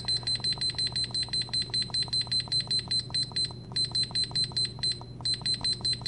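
Digital kitchen timer beeping rapidly, about eight short high beeps a second, as its button is pressed to step the clock's minutes forward, each beep marking one step. The run breaks off briefly twice.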